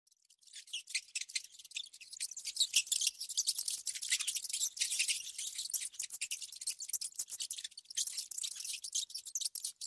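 A rat rustling and scrabbling through dry leaf litter: a quiet, rapid, dry crackling and scratching, all high-pitched, that starts about half a second in and dips briefly about two-thirds of the way through.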